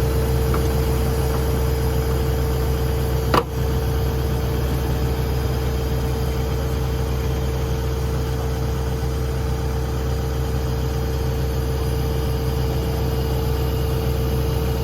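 Sumitomo SH120LC-6 excavator's diesel engine idling steadily, with one short click about three and a half seconds in.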